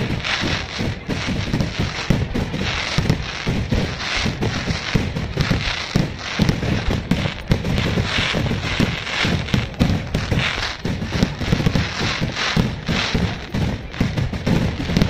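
Aerial fireworks display going off in a dense, continuous barrage of shell bursts, with many bangs overlapping and no pause.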